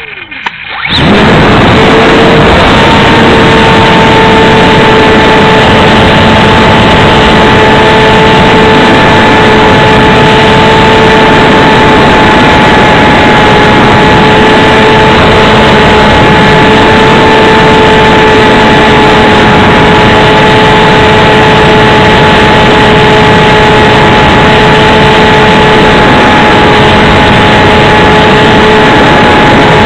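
Brushless electric motor and propeller of an XK DHC-2 (A600) RC plane, heard from a keychain camera mounted on the airframe. About a second in it winds up to full power and then holds a steady whine under loud, flat wind-and-vibration noise that overloads the little camera's microphone.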